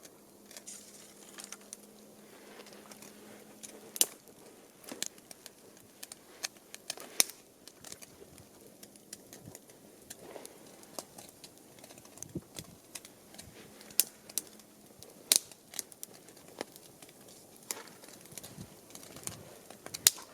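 Wood campfire crackling, with irregular sharp pops and snaps over a low hiss.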